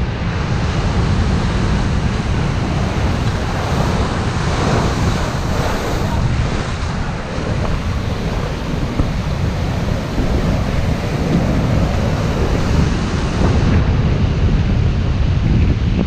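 Heavy storm surf: big waves breaking and sea foam washing ashore in a continuous rush, with strong wind buffeting the microphone.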